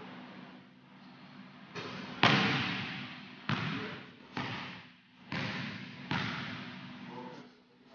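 A basketball bouncing on a hardwood gym floor: about six sharp thuds, irregularly spaced, each ringing out in the hall's echo.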